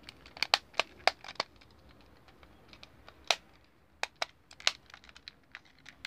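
Sharp clicks and taps of a Pioneer car stereo's hard plastic detachable faceplate being handled: a quick run of clicks in the first second and a half, then scattered single clicks.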